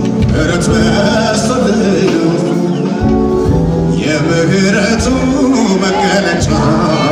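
Live Ethiopian Protestant worship music (mezmur) played by a band, with a male lead singer holding long, wavering notes over a steady bass, heard from within the audience in a large hall.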